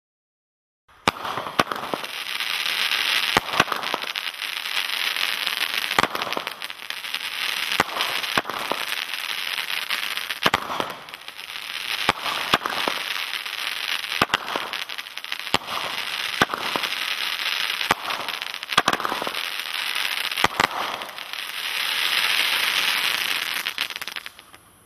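Black Cat Razor Wire 12-shot consumer fireworks cake firing. Sharp shots come about every two seconds over a dense, continuous crackling from its crackling spike-flower stars. The firing starts about a second in.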